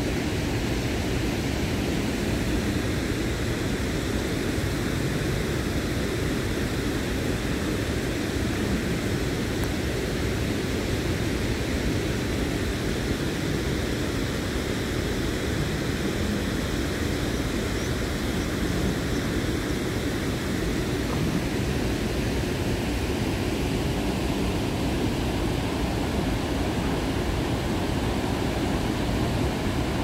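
Steady rushing of water pouring over a stepped river weir, an even unbroken roar.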